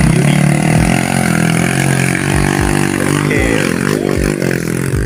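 Motorcycle engine labouring under load on a steep climb, its pitch rising and falling as the rider works the throttle about two-thirds of the way through.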